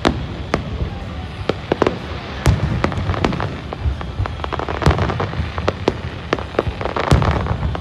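Fireworks display: aerial shells bursting in a rapid, irregular run of bangs and crackles, the loudest bangs coming about two and a half, five and seven seconds in.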